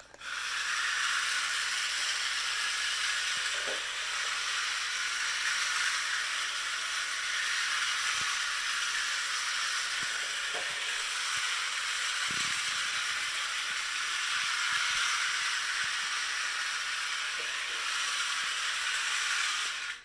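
A steady, even, high-pitched hiss that starts abruptly and cuts off abruptly, with a few faint knocks under it.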